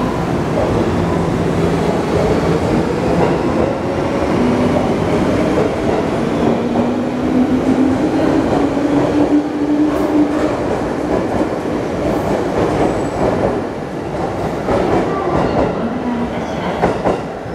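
JR West 205-series electric train pulling out and accelerating past, its traction motors whining and rising slowly in pitch over a steady rumble. In the second half the wheels click over rail joints as the last cars go by.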